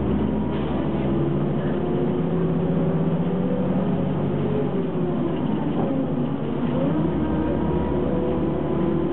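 Ikarus 280 articulated city bus's diesel engine running under way, a steady droning note. About halfway through, the pitch dips and the deep rumble eases for a couple of seconds, then the engine pulls strongly again.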